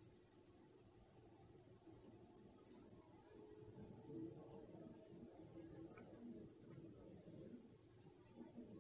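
Insects chirring: a continuous high-pitched trill that pulses rapidly and evenly.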